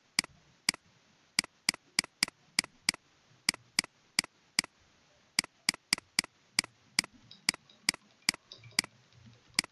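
Computer mouse button clicking repeatedly: about 25 sharp, evenly loud clicks, two to four a second with short pauses between runs.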